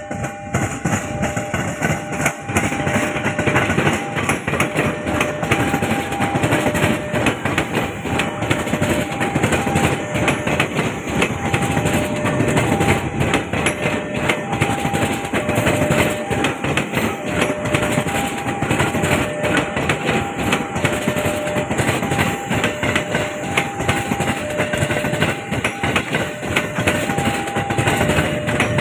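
A train rolling over a railway bridge, its wheels clattering steadily on the rails. Over it a level-crossing warning alarm sounds a repeating two-tone signal, alternating high and low about once a second.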